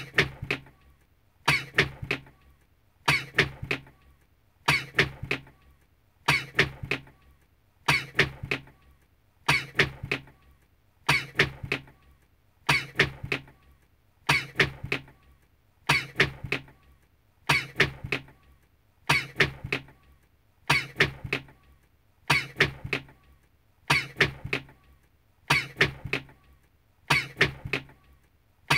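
A recorded human sneeze looped over and over, the same sneeze repeating about every 1.6 seconds.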